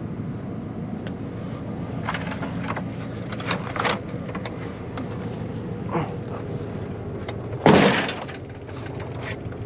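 Scrap metal being handled and dropped: scattered clinks and knocks, with one louder crash a little before the end, over a steady low motor hum.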